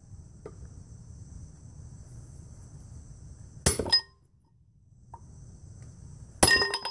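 Hammer blows on a steel punch driving a wheel stud into a GM 14-bolt full-floater hub drum: a quick double strike a little past halfway, then one more strike near the end, each ringing metallically.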